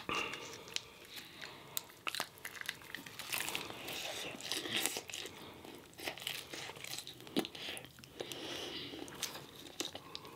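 Crunching bites and chewing of a breaded fried chicken strip close to the microphone, many small crackles, with the crinkle of a paper seasoning packet being handled.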